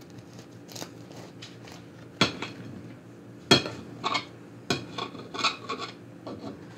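A knife sawing through the crust of a freshly baked seeded wholemeal loaf: scratchy strokes, with three sharp knocks about two, three and a half and four and a half seconds in.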